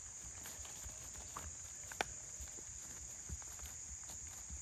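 A steady high-pitched insect chorus, with soft irregular footfalls on grass and a single sharp click about two seconds in.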